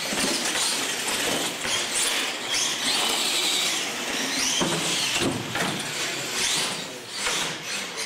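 Radio-controlled monster trucks racing on a concrete floor, their motors and tyres whining and squealing, with several sharp knocks along the way.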